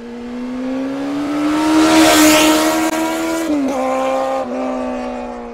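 A vehicle engine note that rises as a rushing whoosh sweeps past about two seconds in, then dips sharply in pitch twice and fades out near the end.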